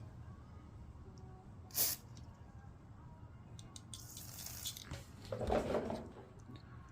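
Bench handling sounds while working on a small-engine carburetor: a short hiss about two seconds in, a longer hiss around four seconds, and a louder rustle near the end.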